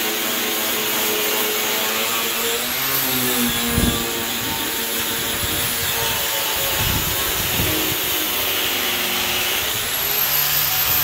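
Power wire wheel spinning against rusted sheet steel of a truck cab, scouring off rust, with a steady loud scrubbing hiss. Its high motor whine rises and dips a couple of times as it works.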